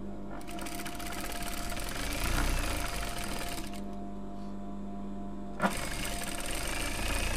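Sewing machine stitching a seam through fabric in two runs. Fast, even stitching for about three seconds, then a pause of about two seconds with only a steady hum, then a click and the stitching starts again.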